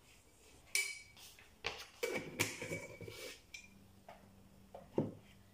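Kitchen handling sounds of plastic jars and containers: a sharp click just under a second in, a clattering rustle a couple of seconds in, then a few light knocks as things are set down.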